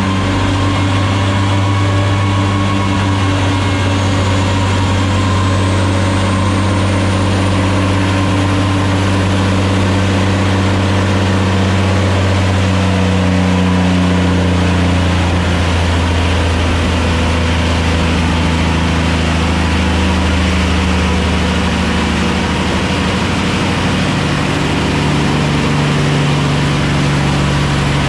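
Caterpillar 6NZ heavy diesel engine running steadily at a held speed, around 1500 rpm, while its fuel system is checked for air. The engine note shifts slightly in the middle and again near the end. A faint high whine rises in pitch a few seconds in.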